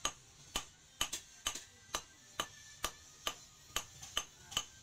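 Hand hammer striking red-hot rebar on a steel post anvil, forging the glowing end to a taper. Steady blows about two a second, each a sharp clink with a short metallic ring.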